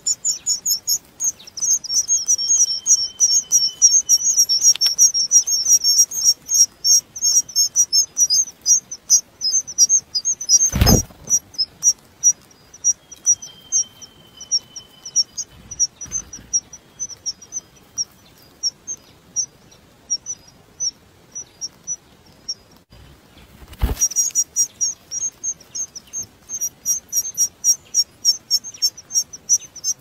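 Songbird nestlings cheeping rapidly in high begging calls, dense while the parent is at the nest, thinning out in the middle and picking up again about four-fifths of the way in. Two sharp thumps, about a third of the way in and about four-fifths of the way in, are the loudest sounds, and a faint thin whistle sounds twice in the background.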